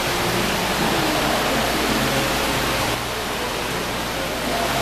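Water of a tiered carved-stone fountain falling and splashing steadily into its basin and pool, a continuous rushing hiss that dips slightly about three seconds in.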